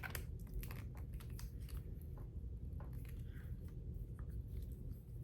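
Faint handling noise: many small plastic clicks and light scrapes as a USB-C wall plug and a travel plug adapter are handled and fitted together.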